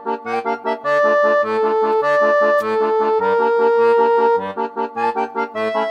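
Upbeat instrumental background music with held melody notes over a bouncing bass-and-chord beat.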